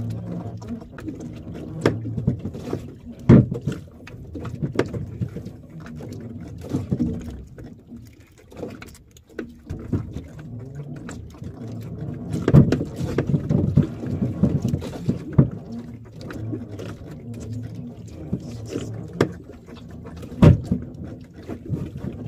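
A fishing handline being hauled in hand over hand on a small boat: a low rumble under irregular knocks and clicks, with a few sharp thumps standing out.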